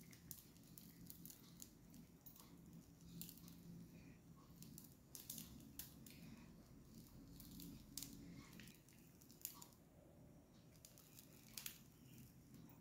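Near silence with faint, irregular clicks and creaks from a steel idiyappam press as it is turned to squeeze wheat-flour dough out in thin strands.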